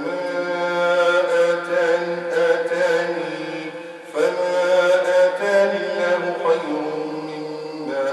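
Imam's melodic Quran recitation in Arabic during the Shafa' and Witr prayer: one man's voice chanting long held notes, with a brief pause about four seconds in before the next verse begins.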